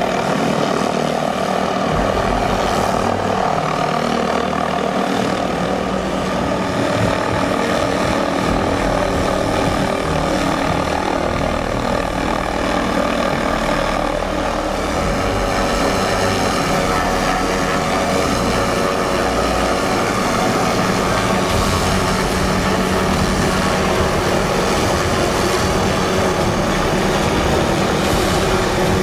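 MD 530F helicopter's turbine engine and five-blade main rotor running steadily as it hovers and moves slowly overhead with a load slung on a line.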